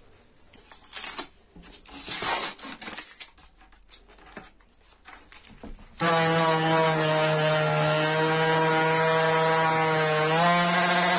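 Crinkling plastic and light knocks as a bag-wrapped jar mould is pulled out of cured epoxy, then about six seconds in a DeWalt random orbital sander starts abruptly and runs with a steady whine while sanding the epoxy patch flush, its pitch rising slightly near the end.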